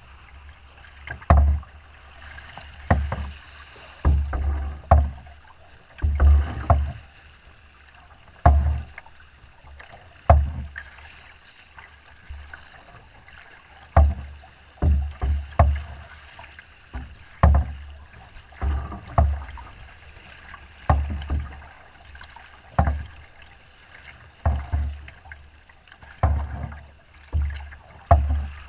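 Choppy, wind-driven waves slapping against a small boat's hull: a dull thump with a splash every second or two, at uneven intervals, over a faint steady wash of rough water.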